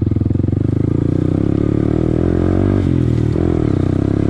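Honda Grom's small single-cylinder four-stroke engine running as it is ridden across a field. The revs rise and fall, dip about three seconds in, then pick up again.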